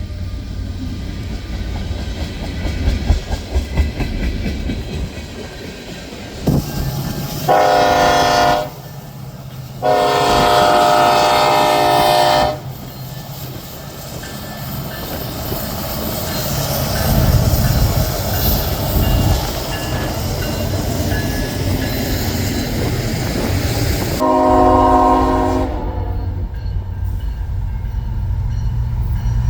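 Train horn sounding three blasts, each a chord of several tones, the second the longest, over the steady rumble and wheel clatter of a train on the rails.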